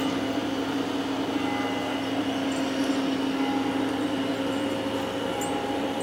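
A nearby engine running steadily, a low hum that holds one pitch without change.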